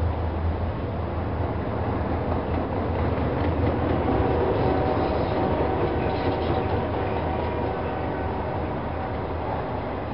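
Long freight train of autorack cars rolling past, with a steady rumble and clatter of steel wheels on the rails. A faint, steady high whine from the wheels comes in from about four to eight seconds in.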